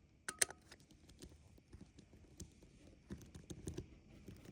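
Faint scattered clicks and light knocks of a screwdriver and small hardware being handled at a stripped screw. There are two sharp clicks near the start and a cluster of taps about three seconds in.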